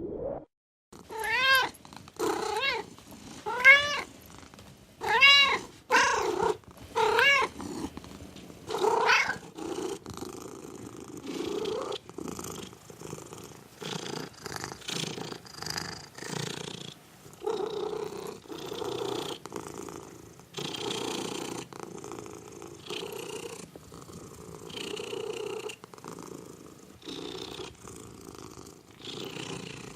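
A domestic cat meowing about seven times in short calls that rise and fall in pitch, then settling into steady, rhythmic purring from about ten seconds in.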